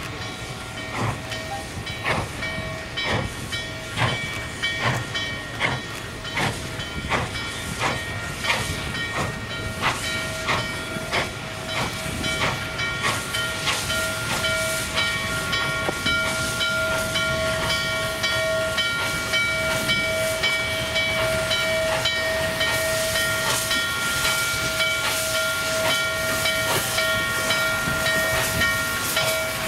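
Steam locomotive working hard, its exhaust chuffing about twice a second, with a chord of steady steam-whistle tones. The whistle grows louder about halfway through and holds, along with a rising hiss of steam, while the beats fade under it.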